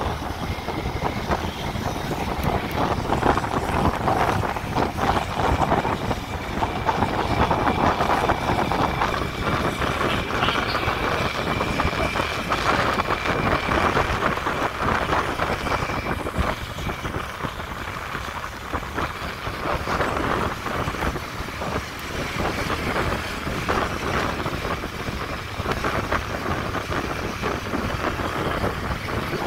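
Motorcycle on the move: engine running steadily under wind rushing over the microphone.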